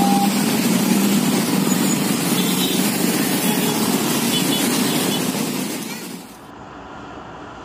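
Many small motorcycle and scooter engines running together as a crowd of motorbikes rides across a railway level crossing: a dense, steady traffic noise. About six seconds in it drops off to a much quieter background.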